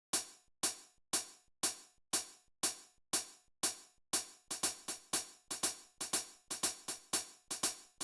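Reason's Redrum drum machine playing a hi-hat-only pattern: short, crisp strikes about two a second, with quieter in-between strokes doubling it to about four a second a little past halfway.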